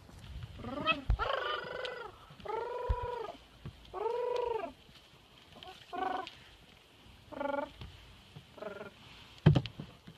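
Clouded leopard giving a series of about seven high, mewing calls, each rising then falling in pitch. The first few are longer and the later ones shorter. A sharp thump comes near the end.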